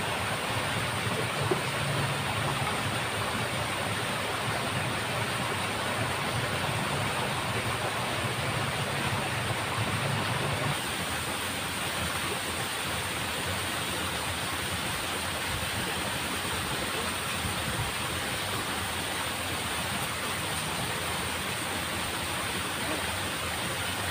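Steady rushing of water flowing in a small irrigation ditch, with a low hum under it that stops about ten seconds in.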